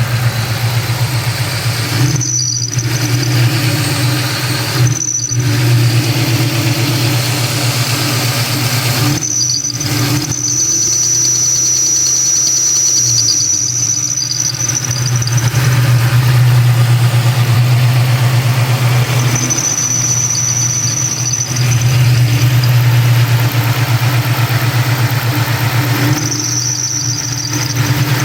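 2003 Mustang SVT Cobra's supercharged V8 running steadily while the accessory drive belt gives a high-pitched squeal that comes and goes. The squeal sounds several times: short chirps early on, a long one of about five seconds near the middle, and two more of a couple of seconds each later. It is the sign of a bad belt tensioner.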